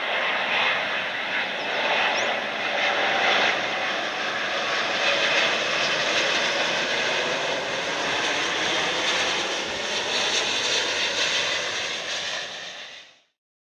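Airbus A350 with Rolls-Royce Trent XWB engines on final approach with gear down, a steady rush of jet noise from the engines at approach power. The sound cuts off abruptly near the end.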